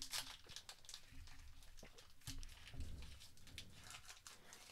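Faint crinkling and tearing of a foil booster-pack wrapper being torn open by hand, a scatter of small crackles.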